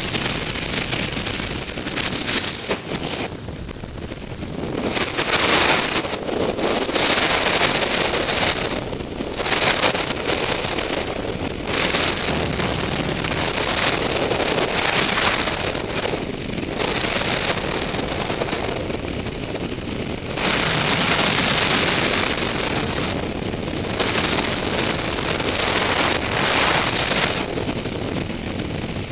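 Freefall wind rushing over a helmet-mounted camera's microphone, a loud, even noise that swells and eases every few seconds.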